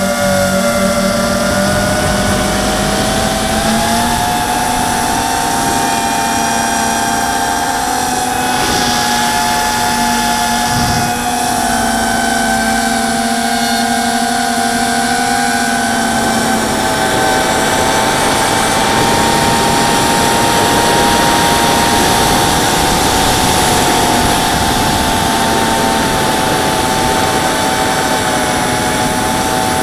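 ZMR 250 mini quadcopter's brushless motors and propellers whining steadily in flight, as heard from the quad's onboard camera. The whine shifts in pitch with the throttle, stepping up about four seconds in and again near the end, over a rushing noise.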